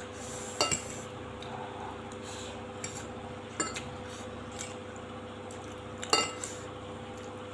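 Metal fork clinking and scraping against a glass plate while twirling up noodles: a few sharp clinks a couple of seconds apart, the loudest about six seconds in.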